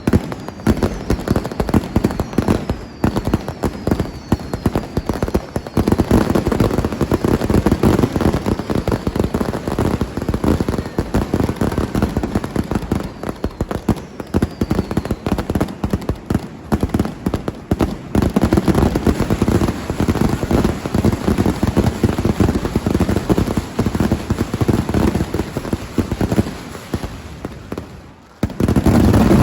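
Firecrackers and fireworks crackling and banging densely without pause, with short falling whistles in the first few seconds. The crackle drops off briefly near the end, then comes back loud.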